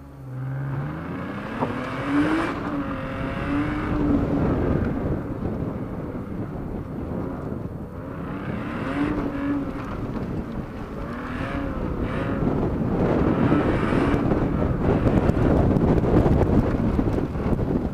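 BMW E36 engine revving hard as the car launches and accelerates on a dirt rallycross course, heard from inside the cabin. Its pitch climbs at the start, then rises and falls with shifts and lifts between cones. The din of tyres on loose dirt grows louder near the end.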